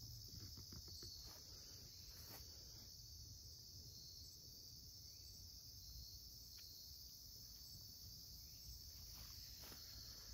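Faint, steady high-pitched chorus of insects such as crickets, with a few soft ticks and scuffs.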